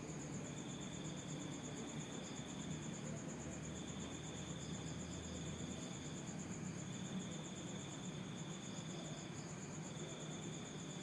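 Insects trilling steadily: one high continuous trill, and a lower trill coming in spells of about two and a half seconds with short breaks between, over a faint low hum.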